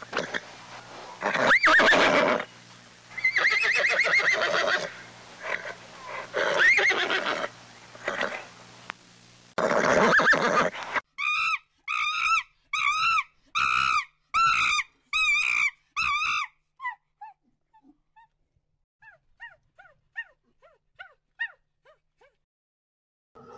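A donkey braying, a rough hee-haw drawn in and out over several seconds. After a cut, a string of short, high chirping calls about twice a second from squirrel monkeys, giving way to faint, scattered chirps near the end.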